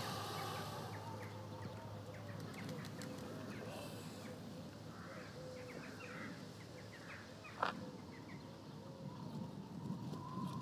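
Quiet outdoor ambience with birds chirping here and there over a low steady background, and one sharper, louder sound about seven and a half seconds in.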